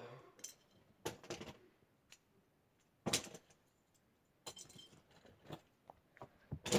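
Fidget toys being tossed into a container, knocking and clattering against each other in about six separate bursts, the loudest near the end.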